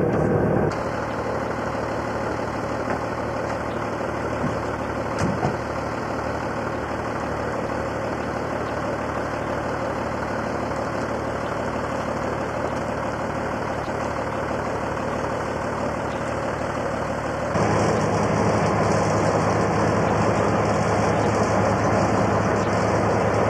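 Diesel engine of a heavy recovery truck running steadily as its crane lifts an aircraft cockpit section, with a few light knocks about five seconds in. About 17 seconds in the engine gets suddenly louder and fuller and stays that way.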